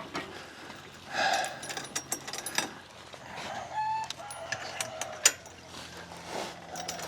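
Poultry calling a few times in short calls, one held pitched call about four seconds in, among scattered sharp clicks and knocks.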